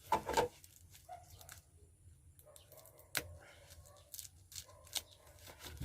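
Quiet handling noises: scattered light clicks and rubbing as an item is handled, with one sharp click about three seconds in.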